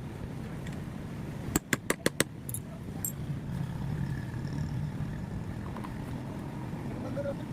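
Five sharp knocks in quick succession about one and a half seconds in, over a steady low background rumble.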